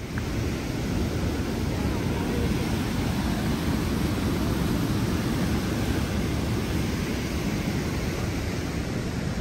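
Fast mountain creek rushing steadily, running high with snowmelt.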